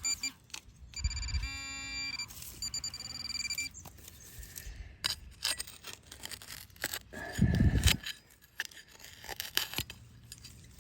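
Minelab Equinox 800 metal detector sounding steady high beeping tones on and off over a target, amid short scrapes and knocks of digging in soil. A loud low thud comes about seven and a half seconds in.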